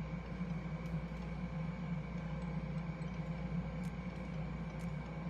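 A few faint clicks of a lip tint's sealed plastic packaging being cut open with an opener tool, over a steady low hum.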